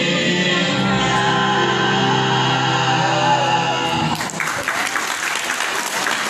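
A mixed vocal quartet holds a final sung chord, which ends about four seconds in; audience applause follows at once.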